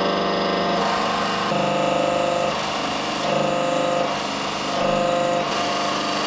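A workshop press running as it dishes a steel plate between dies. It makes a steady mechanical hum whose pitch shifts every second or so.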